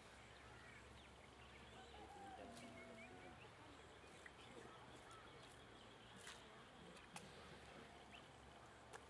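Near silence: faint outdoor background with a low steady hum, a faint wavering call lasting about a second around two seconds in, and a few faint ticks.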